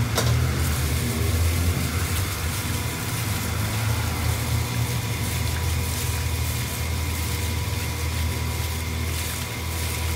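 A steady low mechanical hum runs throughout, with faint wet squishing and light ticks from a gloved hand kneading chicken pieces in marinade. A sharp knock sounds right at the start.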